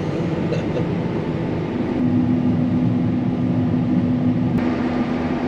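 Combine harvester running in wheat, a steady machine drone heard from the operator's cab; a steady low hum joins it about two seconds in.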